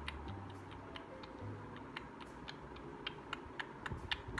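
Irregular sharp clicks, a few a second, over the steady hum of an electric fan.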